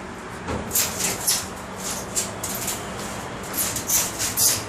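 Shiba Inu sniffing in short, quick, uneven puffs, about ten of them.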